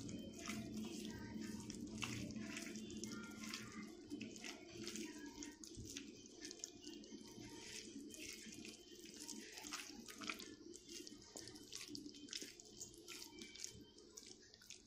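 A hand mixing steamed button mushrooms in a wet spice-and-flour coating, working them against a mesh strainer: faint wet squishing and rustling, with many small irregular ticks.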